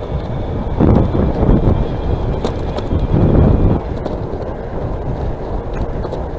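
Wind rushing over the microphone and rumble from riding an electric bicycle, swelling louder about a second in and again around three seconds.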